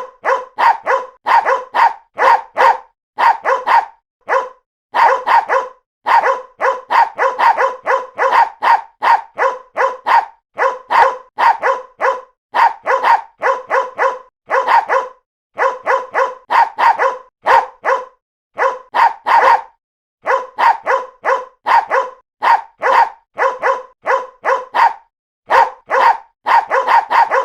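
Poodles barking: short, sharp barks in quick runs of two to four, with brief pauses between runs.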